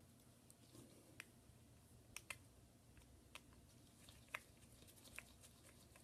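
Faint, scattered small clicks of a precision screwdriver and tiny screws being worked loose from a phone's shield plate, about six light ticks over the stretch.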